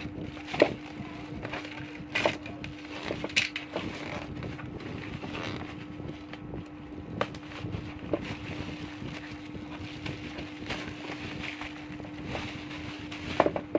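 Shoe box and packaging being handled: scattered sharp knocks and faint rustling over a steady low hum.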